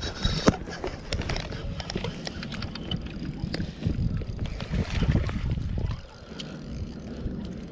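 Irregular knocks and clicks of handling, over a low rumble of wind on the microphone.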